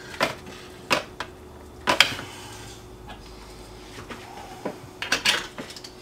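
Steel rotisserie spit and its forks clinking and tapping on a metal sheet pan while the spit is worked through a roast: a few sharp metallic knocks, with a quick cluster near the end.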